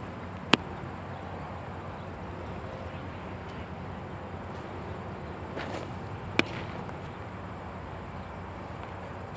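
A baseball pitch smacking into the catcher's leather mitt about half a second in, a single sharp pop. A second, slightly quieter leather smack comes about six seconds later, over a steady outdoor background hiss.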